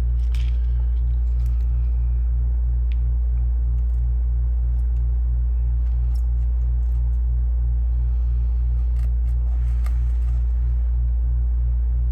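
Steady low electrical mains hum with a pulsing buzz above it, about three pulses a second. Over it come a few light clicks and scrapes of a soldering iron and solder wick working on a circuit board.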